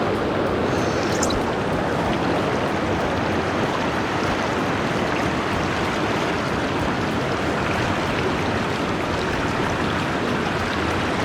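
River water rushing steadily past, an even noise that neither rises nor falls.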